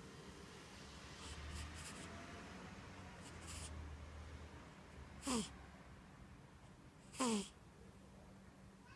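Sleeping cat snoring: soft breaths, then twice a short squeaky whistle that falls in pitch, about five and seven seconds in.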